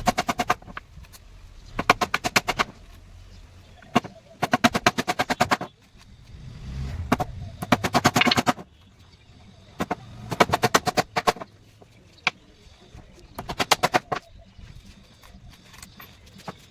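Repeated bursts of rapid, evenly spaced knocks on wood, about ten a second, each burst lasting about a second with short pauses between.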